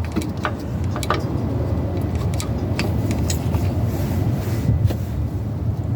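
A few light metal clicks and taps as drum-brake hardware is handled and fitted, over a steady low rumble.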